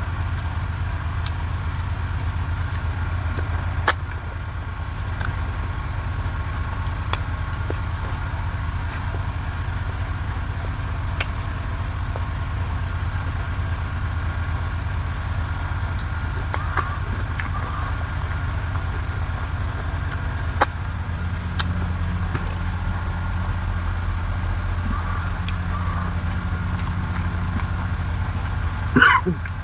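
A steady low mechanical hum, like an engine running, with scattered light clicks and a louder clatter near the end.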